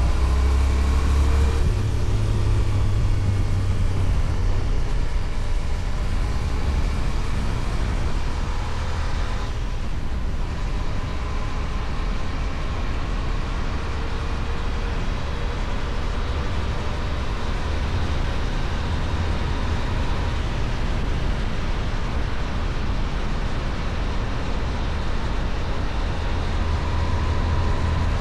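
Kove 625X Adventure motorcycle with its stock exhaust, running steadily while riding along, with wind and road noise. The engine note shifts near the start and rises slowly about ten seconds in.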